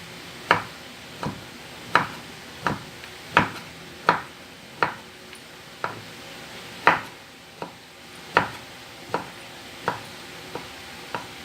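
A kitchen knife chopping tempe into small pieces on a cutting board: a string of sharp, uneven knocks, about one every half to three-quarters of a second.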